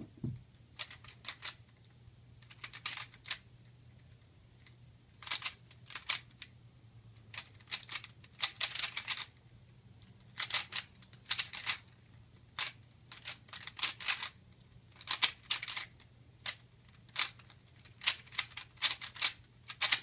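A 3x3x3 speedcube being solved fast by hand, its layers clicking and clacking in quick flurries of turns with short pauses between, ending in a louder knock.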